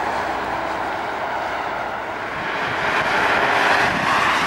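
Steady road traffic noise from vehicles on the road, growing louder about three seconds in, then cutting off suddenly.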